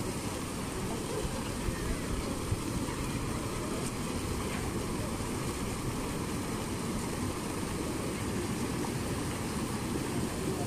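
Steady, low rumbling outdoor noise with no distinct events.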